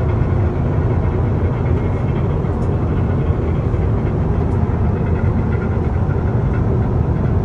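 Steady low rumble of a Boeing 777-300 airliner in cruise, engine and airflow noise heard inside a cramped aircraft lavatory.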